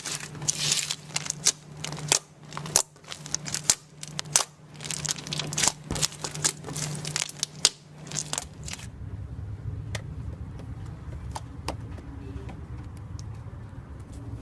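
Slime being squeezed and worked by hand, giving dense crackling and popping clicks. About nine seconds in it changes abruptly to quieter handling with only a few clicks over a low hum.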